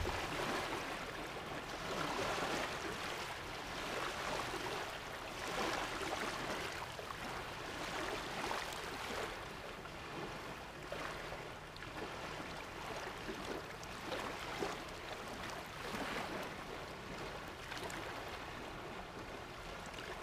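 Small waves lapping on a sandy shore: a soft wash of water that swells and fades every two seconds or so.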